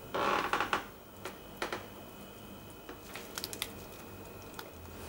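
Soft rustle of sponge cake pieces being dropped by hand onto whipped cream in a glass bowl, followed by a few light clicks and taps of handling against the bowl, a quick cluster of them about three and a half seconds in.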